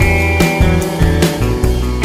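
Background music with a steady beat: regular drum strokes over sustained bass notes.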